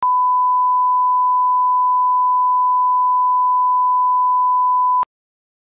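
A steady 1 kHz sine test tone, the line-up reference tone that goes with colour bars, held for about five seconds and then cut off abruptly with a click.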